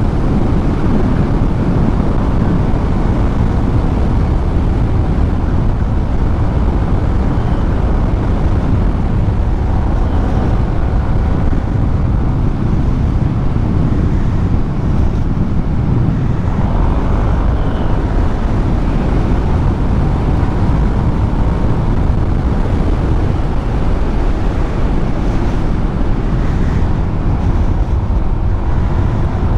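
Steady wind rush over the microphone of a motorcycle riding at road speed, with the engine's running note faintly underneath.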